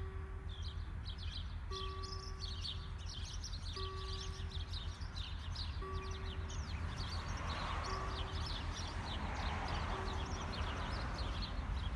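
BUES2000 level crossing's electronic warning bell sounding a single pitched tone, about 0.8 s long, every two seconds while the crossing closes. Birds chirp throughout, and a broad rushing noise swells and fades in the second half.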